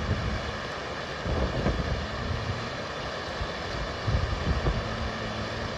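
Fast-flowing brown floodwater rushing through a street, a steady torrent, with gusts of wind buffeting the microphone.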